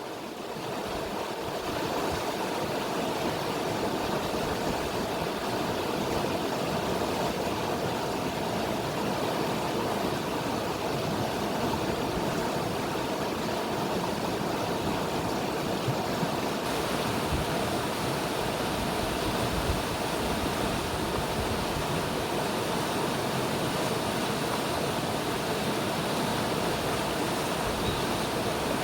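River water flowing in a steady rush, rising over the first couple of seconds and then holding even.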